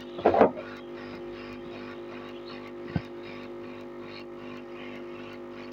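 Hot air rework gun running: its fan gives a steady hum with a hiss of blowing air as it heats a surface-mount chip on a circuit board to melt the solder and lift it. A single sharp click about three seconds in.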